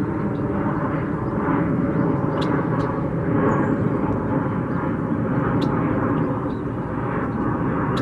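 Steady low rumble of distant engine noise, with a few faint high ticks about two and a half seconds and five and a half seconds in.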